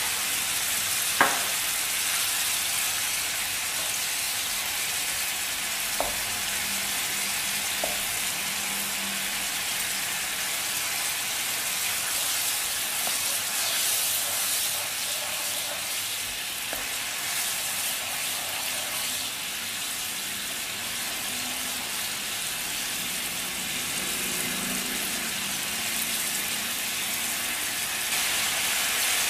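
Coconut sugar and fish sauce sizzling in hot oil in a nonstick frying pan, a steady frying hiss as the sugar melts, while a spatula stirs through it. A sharp knock about a second in and a couple of fainter clicks later.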